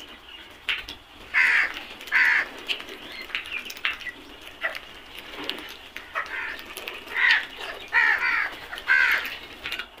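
A flock of house crows cawing: short, harsh caws, loudest in a pair about two seconds in and a run of three near the end, with quieter calls between.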